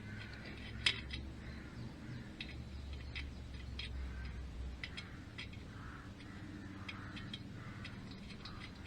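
Faint scattered clicks and light taps of metal tools and engine parts being handled, over a low steady hum.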